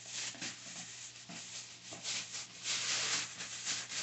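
Packaging rustling in irregular strokes as a soft item is tugged out of its package by hand, loudest a little past the middle.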